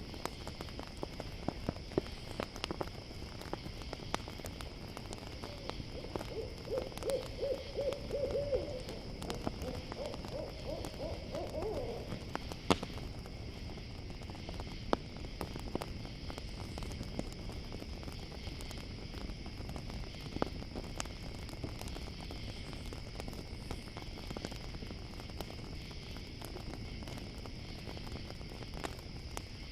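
An owl calling in two runs of rapid, quavering hoots about six seconds in, the second run rising slightly in pitch. Crickets chirp steadily under it, and a campfire crackles with scattered pops, the loudest just after the hoots end.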